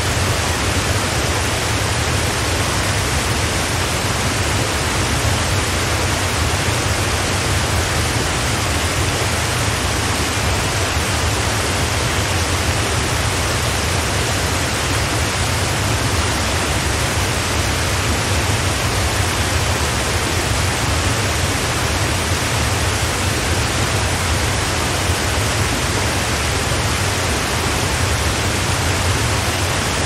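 Wide waterfall cascading over a ledge into a river: a steady, even rush of falling water with a deep rumble underneath.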